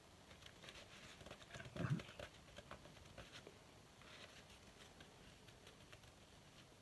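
Faint rustling and crinkling of a paper tissue being rubbed between the fingers, with one slightly louder rustle about two seconds in.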